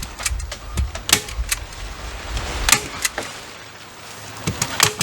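Staple gun driving staples through house wrap into the wall: a series of sharp, irregularly spaced clacks, about eight in all.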